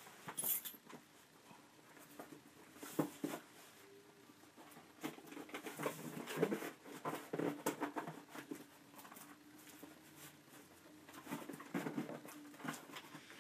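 Fingers handling a small cardboard box, picking and scraping at its sealed edges and flaps: irregular light scratches, taps and rustles of card.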